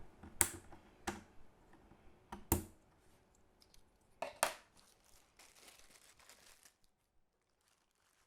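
Handling sounds: a few sharp clicks and knocks with lighter rustling between them, stopping about seven seconds in.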